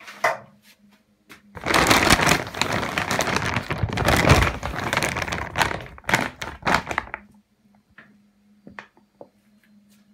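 Large plastic sack of dry cat food being handled, crinkling and rustling loudly for about four seconds, then a few separate crackles as it settles.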